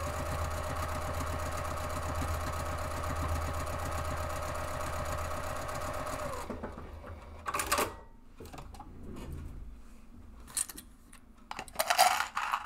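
Juki sewing machine stitching steadily at speed, sewing down the open edge of a folded fabric strap, then stopping about six and a half seconds in. A few short clicks and rustles of handling follow.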